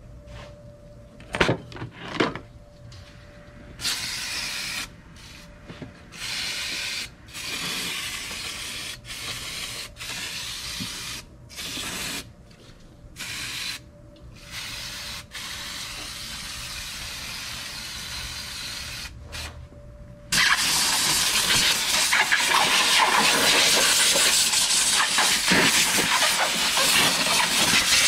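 An aerosol spray can hissing: two sharp clicks, then short spray bursts on and off, then from about two-thirds of the way through one long, louder continuous spray.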